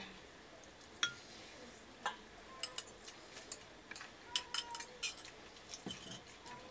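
Metal spoon clinking and tapping against steel and glass bowls: a scatter of sharp clinks, busiest in the middle, some ringing briefly.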